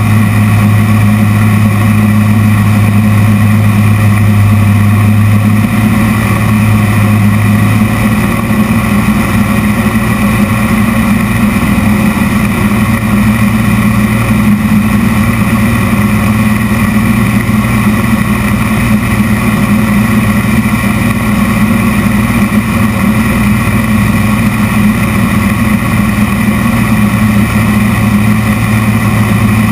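Piston engine and propeller of a Zlin aerobatic aircraft droning steadily as heard from inside the cockpit, loud throughout. The engine note shifts slightly about six to eight seconds in.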